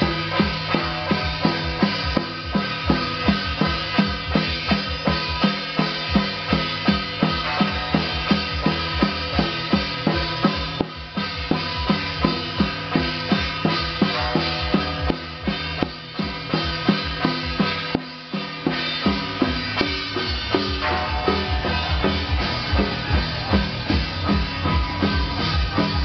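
Temple procession music: a steady percussion beat with a sustained melody over it.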